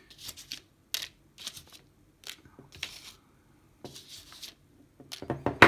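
Hands handling small lock parts on a work surface: short scrapes and rustles a few times a second, with a quick run of sharper clicks near the end.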